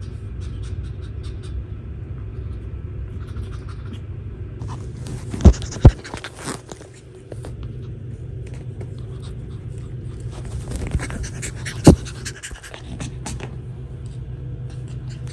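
Shih Tzu puppy panting and rustling as it plays with a plush toy on a fabric dog bed, over a steady low hum. Three sharp knocks are the loudest sounds: two about half a second apart around five and a half seconds in, and one near twelve seconds.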